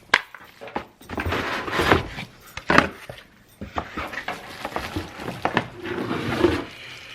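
Unboxing handling noise: cardboard and packaging scraping and rustling, with several sharp knocks and clicks as the kettle is taken out of its box.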